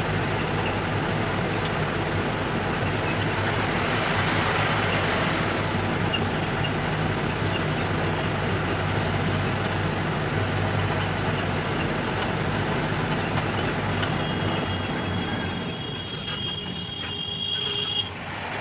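Engine and road noise of an Ashok Leyland Ecomet truck driving along a highway, heard from inside the cab, with a steady low engine drone. Near the end the noise falls away as the truck slows. A thin high squeal comes in for a few seconds, from the brakes.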